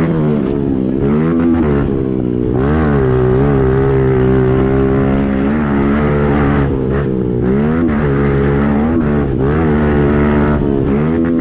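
Pit bike engine being ridden hard, its pitch dropping and climbing again about six times as the throttle is rolled off and back on, with steady high-rev stretches in between.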